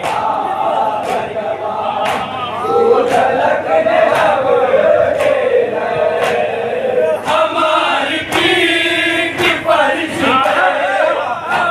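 A group of men chanting a noha together, with a sharp beat about once a second.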